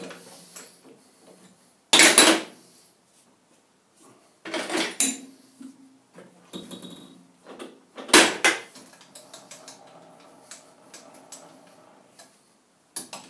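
Steel-on-steel clanks and clinks as a boring bar is loosened in a lathe's four-jaw chuck with a chuck key and slid out. There are about four sharp metallic knocks a few seconds apart, with lighter clinks and scraping between them.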